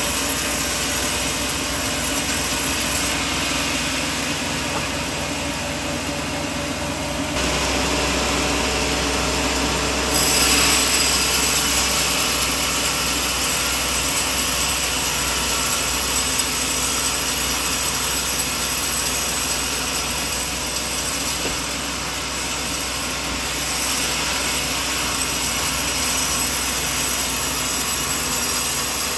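Sawmill running and sawing a coconut log, a steady machine noise. A low hum joins about seven seconds in, and the sound gets louder and hissier about ten seconds in.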